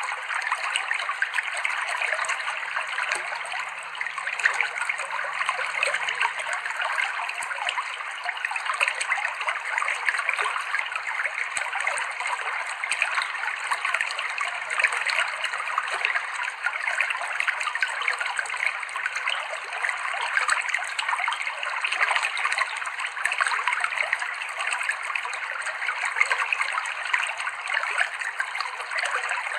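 Clear river water running and trickling over rocks, a steady babbling stream sound with fine splashy flicker.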